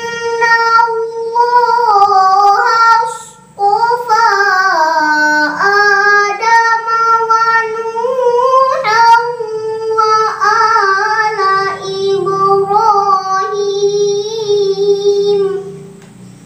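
A young girl chanting Qur'an recitation (tilawah) in a melodic style: long held notes with ornamented turns, broken by a short breath about three seconds in. The chanting stops shortly before the end.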